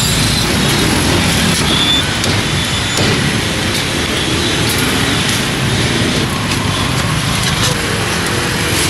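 Steady street traffic noise, with a few faint knocks through it.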